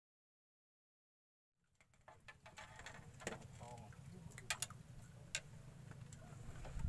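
Silence for about a second and a half, then faint outdoor sound with a low hum and scattered sharp clicks and ticks.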